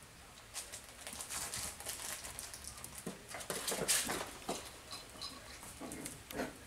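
Seven-week-old Cavapoo puppies playing and wrestling on a tile floor: a run of short, irregular scuffles and clicks of claws and paws on the tiles, with toys knocked about.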